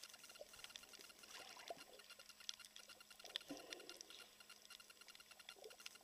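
Faint underwater crackle of scattered clicks over a coral reef, with a faint even ticking underneath and a brief louder rustle of water about three and a half seconds in.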